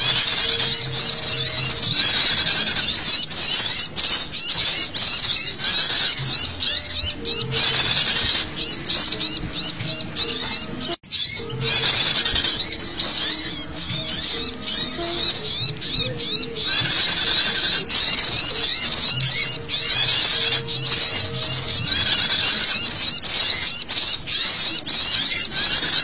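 A dense, busy chorus of small songbirds, sunbirds and white-eyes layered as a bird-lure call, with rapid high-pitched chirps and twitters overlapping without pause. It cuts out for a split second about eleven seconds in.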